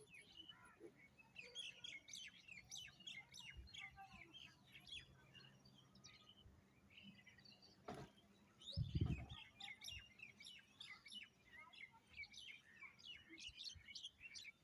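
Small birds chirping, many short rapid calls overlapping. A sharp click about eight seconds in, then a low thump a second later, the loudest sound.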